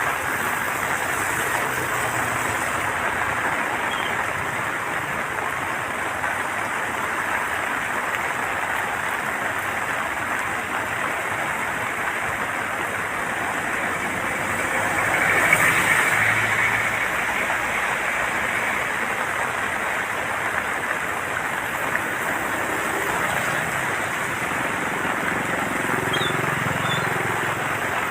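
Steady rushing of water pouring through the open floodgates of the Serut dam, with a brief swell about halfway through.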